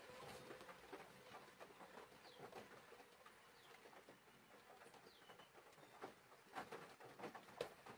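Near silence inside a car cabin, broken by faint, irregular ticks of rain on the roof and windscreen, a few louder taps near the end.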